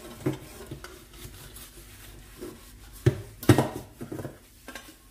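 Metal teapot and pots being handled in a stainless-steel kitchen sink, knocking and clinking against the sink and each other, with two louder knocks about three seconds in.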